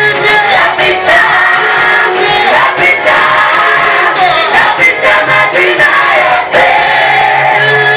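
Group of voices singing a worship song with instrumental backing.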